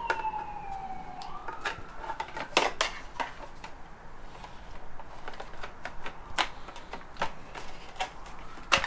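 Scattered clicks and knocks of hand work on the motorcycle, plastic fairing parts and a connector being handled and unclipped. A single falling tone, like a distant siren's wail, fades away in the first second or so.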